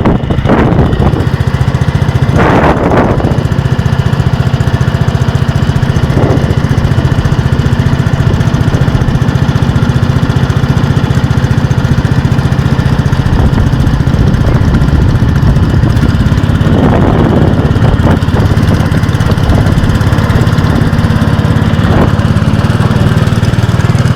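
A small engine running steadily at an even speed, with a few brief noisy swishes over it.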